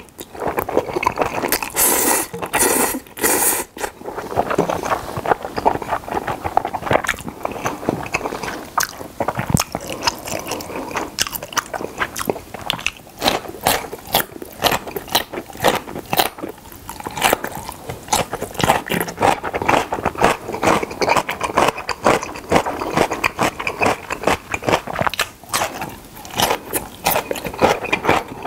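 Jjapaghetti black-bean noodles slurped loudly a couple of seconds in, then pickled yellow radish (danmuji) strips crunched and chewed steadily, with many crisp bites.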